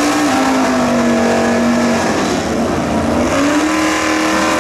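Drag race cars' engines revving hard at the burnout box, the pitch climbing, falling back and climbing again.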